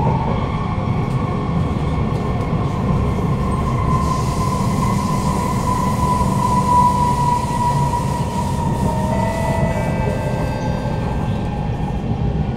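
Kawasaki C151 MRT train running at speed, heard from inside the carriage: a steady rumble of wheels on rail with a high whine that slowly sinks a little in pitch. About nine seconds in, further whining tones join in, shifting in pitch in steps.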